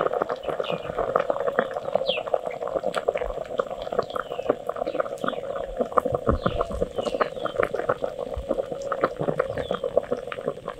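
Chicken broth in a green poblano sauce boiling hard in an earthenware cazuela over a wood fire: a steady bubbling with many small pops.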